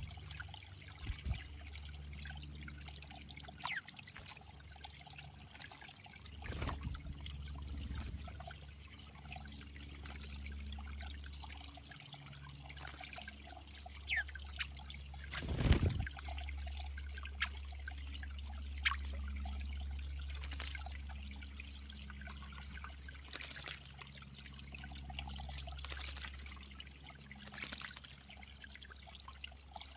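Water trickling steadily into a backyard bird pond, with a few short high chirps and a brief thump about halfway through.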